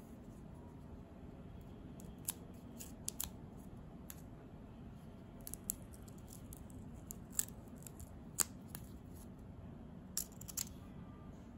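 Paper cigar overlay band being peeled off by fingers: scattered small, sharp paper crackles and ticks at irregular intervals, loudest a little past the middle.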